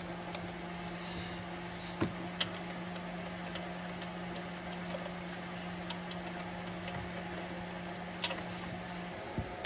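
Light metallic clicks and taps of throttle body mounting bolts being fitted and threaded in by hand, with sharper clicks about two seconds in and again near the end. A steady low hum runs underneath and stops shortly before the end.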